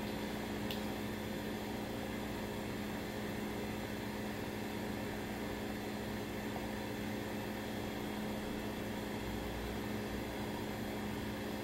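A steady low hum over a constant hiss: background room tone from a running fan or appliance. A faint tick comes just under a second in.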